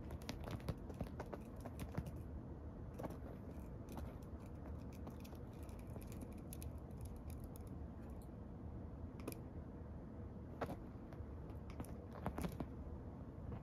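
Light rustles and small ticks of a feather wand cat toy being flicked and dragged over a woven cloth bedspread, coming in small clusters.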